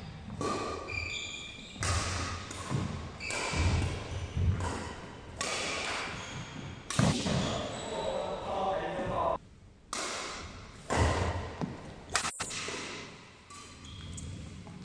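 Badminton doubles rally on a wooden court floor: irregular sharp racket strikes on the shuttlecock, mixed with footstep thuds and short high shoe squeaks on the floor.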